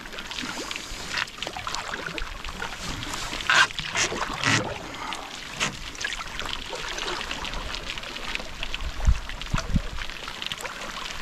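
A wooden canoe paddle stroking through lake water, with irregular splashes and drips off the blade, over a steady hiss of rain on the water. There are a couple of low thumps around nine seconds in.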